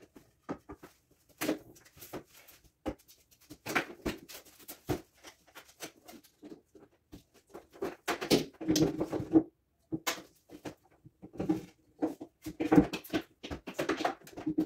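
Scattered knocks, bumps and scrapes as a heavy over-the-range microwave is handled and lifted up toward its wall mounting plate, with short straining grunts of effort. The densest stretches come about eight seconds in and again near the end.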